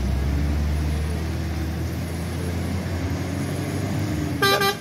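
Heavy diesel tanker truck engine pulling under load up a gravel slope toward the listener, a steady low drone. Near the end comes one short, loud horn beep.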